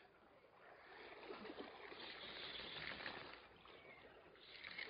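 Faint sea water lapping and trickling against shore rocks, a quiet, even wash with no distinct events.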